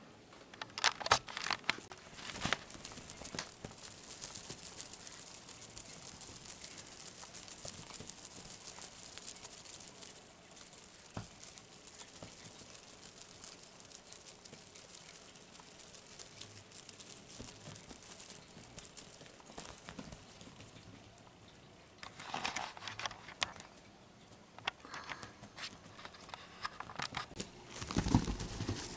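A kitten pouncing and scrabbling after a feather wand toy on a blanket: bursts of scuffling, rustling and light thumps, about a second in, again around two-thirds of the way through, and near the end.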